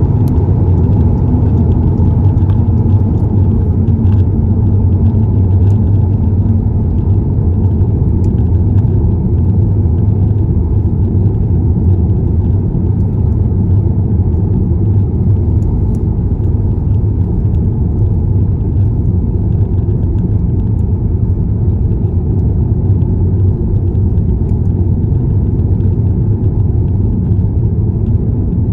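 A car driving at steady speed: a continuous low rumble of engine and road noise, even in level throughout.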